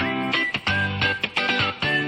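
Background music with guitar, starting abruptly at the beginning.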